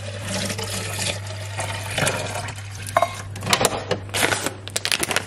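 Water poured from a jug into an espresso machine's water tank, a steady splashing stream for about the first two seconds. Then a run of sharp crinkles and clicks as a resealable coffee bean bag is handled.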